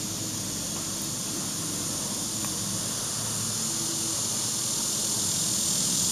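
Summer insect chorus: a steady high-pitched hiss that swells gradually louder.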